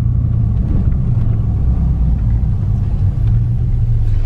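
Steady low rumble of a car moving slowly, heard from inside the cabin: engine and road noise.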